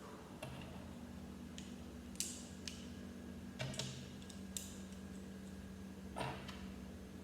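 Lego plastic pieces being handled and pressed together: a scattered series of short, sharp clicks and taps, about eight in all, over a faint steady low hum.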